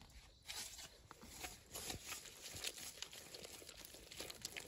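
Faint rustling and crinkling from close-by handling, with many small irregular clicks and crackles.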